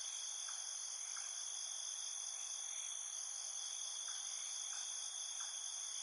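Steady, high-pitched chorus of insects, with several continuous tones sounding at once and no pauses.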